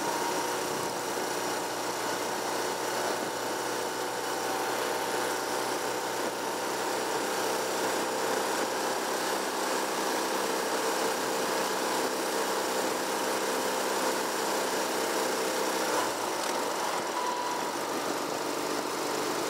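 Vehicle engine running steadily while cruising on an open road, with a wide hiss of wind and road noise; the engine note changes about sixteen seconds in.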